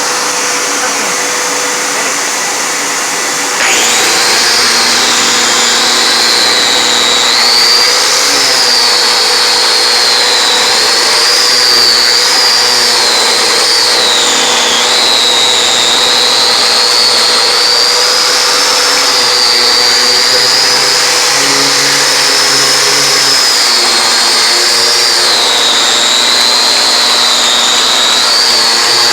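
A steady motor drone, then about three and a half seconds in a DeWalt angle grinder with a diamond cup wheel comes in much louder, grinding set Kwikset off a floor. Its high whine wavers up and down in pitch as the load on the wheel changes.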